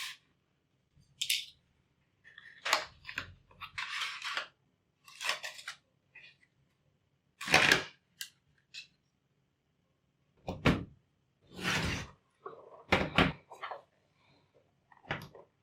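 Hands handling laptop hardware: a series of separate clicks, knocks and short scrapes of plastic and metal parts, with quiet gaps between them and the loudest knock about seven and a half seconds in.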